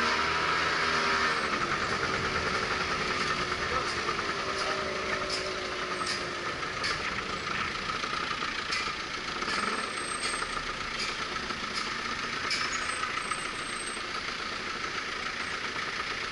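Small scooter engine running at low speed while filtering through congested city traffic, with the idling engines of surrounding cars and trucks around it.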